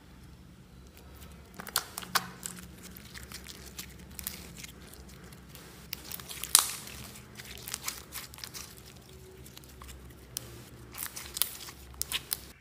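Hands squeezing, stretching and kneading a thick green slime, making irregular sticky pops and crackles, in clusters. The loudest pop comes about six and a half seconds in.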